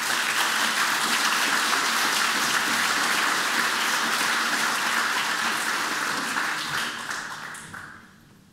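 Audience applauding: dense clapping holds steady for about seven seconds, then dies away.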